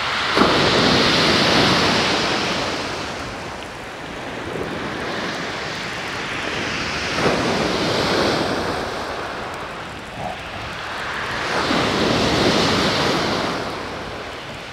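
Rough surf breaking on a shingle beach, the wash swelling and falling in three surges about five seconds apart, with wind buffeting the microphone.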